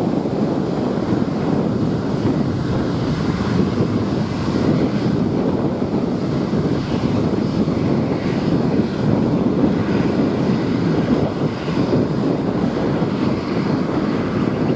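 Boeing 787 airliner's jet engines running at low power as it taxis, a steady even noise, with wind buffeting the microphone.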